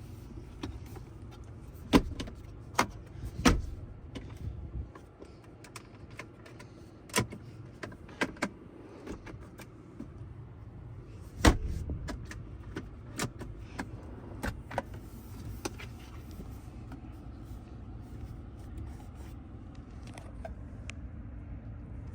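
A steady low rumble inside the cab of a 2023 Ram 1500 pickup, with about a dozen sharp clicks and knocks scattered through the first fifteen seconds. The loudest knocks come about two, three and a half and eleven and a half seconds in.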